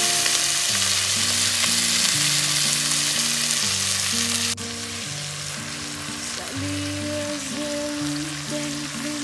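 Steaks searing in a cast-iron Dutch oven: a loud, steady sizzle that drops suddenly to a quieter sizzle about halfway through.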